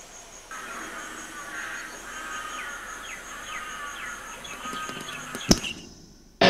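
Harsh bird calls, cawing over and over, with a faint steady high-pitched tone behind them; a single sharp click about five and a half seconds in.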